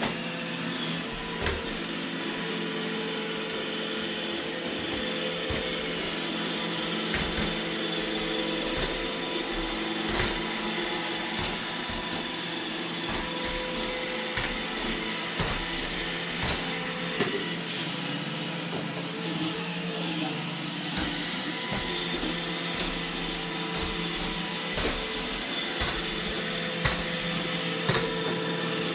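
iRobot Roomba E6 robot vacuum running, a steady motor and brush whir with several steady whining tones in it, with scattered light clicks and knocks as it works across the floor.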